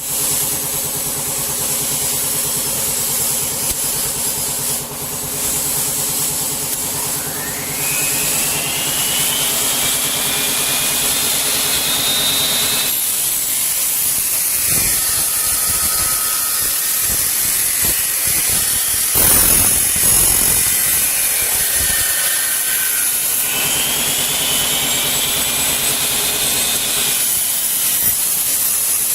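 Double-head aluminium cutting saw running with a steady motor hum and hiss, cutting 5 mm aluminium. High whining tones rise and fall twice, about 8 seconds in and again about 24 seconds in.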